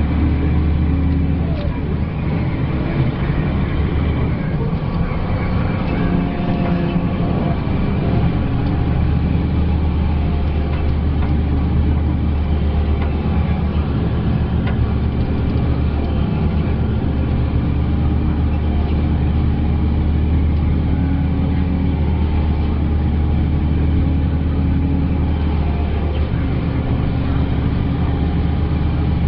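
Volvo B12B coach's six-cylinder diesel engine pulling steadily, heard from inside the passenger cabin along with road noise. Its note shifts briefly about six to eight seconds in, then holds even.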